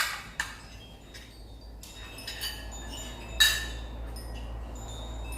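Several light clinks of a spoon against plates and bowls during a meal, the loudest one a little past the midpoint, each leaving high ringing tones behind it.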